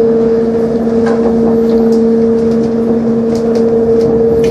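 Inclined rail car running along its steel track: a loud, steady hum at two pitches, with scattered light clicks.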